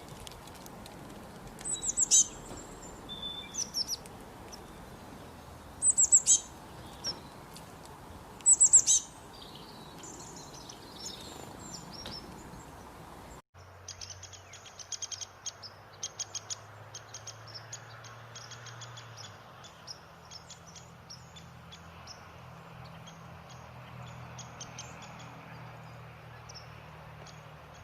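Birds chirping: several loud, high, falling chirps in the first half, then, after an abrupt cut, many quick short high chips in a chattering run over a faint low hum.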